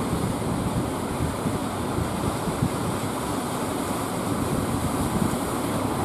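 Steady rush of breaking surf and washing waves, with wind buffeting the microphone.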